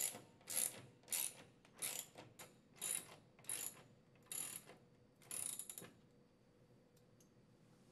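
Ratchet wrench driving a lag screw into a wall anchor, in about ten short ratcheting strokes roughly every half second, which stop about six seconds in.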